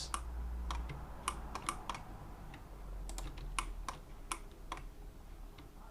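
Scattered clicks of a computer mouse and keyboard, about a dozen at irregular intervals, over a faint low hum.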